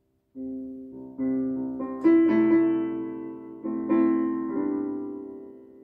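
Electronic keyboard played with a piano-like voice: after a brief pause, a slow series of held chords, struck about once a second, each ringing on and fading, the last dying away near the end.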